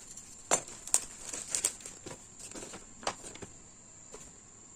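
Paper and plastic packaging crinkling and rustling as they are pulled out and unfolded by hand, in several short crackles over the first three and a half seconds.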